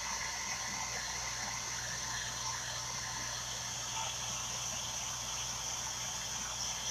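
Steady background noise: an even hiss with a high, steady whine and a low hum underneath.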